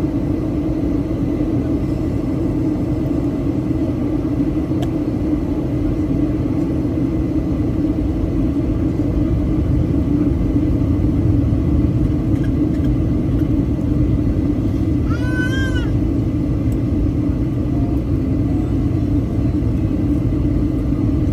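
Steady, loud drone inside the cabin of a Boeing 737-800 airliner: engine and airflow noise with a deep rumble and a strong low hum. About 15 seconds in, a brief high squeal rises and falls in pitch over about half a second.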